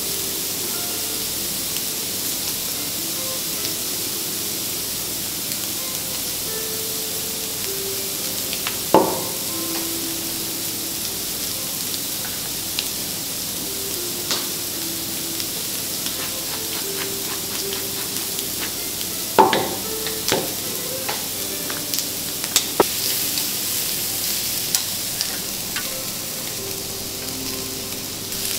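Seafood sizzling steadily on a hot steel teppanyaki griddle, with scattered sharp metallic clicks and two louder knocks, one about a third of the way in and one about two-thirds in. Soft background music plays underneath.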